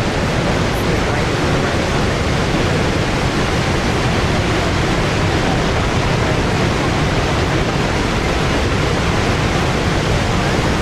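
Steady rushing noise of the Horseshoe Falls at Niagara: a huge volume of water pouring over the brink and crashing into the mist-filled gorge below, loud and unbroken.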